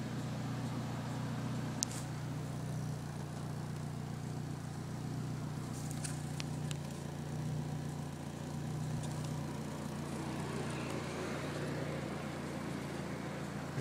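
Mitsubishi 4G93T turbocharged inline-four running steadily at idle on stock engine management, in an engine being chased for a stubborn misfire. A few faint sharp ticks about two seconds in and around six to seven seconds in.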